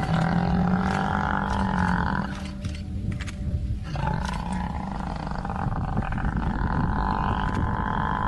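Lions growling while a Cape buffalo under attack bellows in distress: two long drawn-out bellows, the second beginning about four seconds in.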